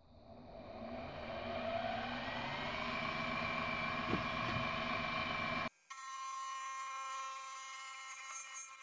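Sieg SX2P mini mill's spindle motor spinning up with a rising whine, then running steadily. About two-thirds of the way through it cuts off sharply and background music takes over.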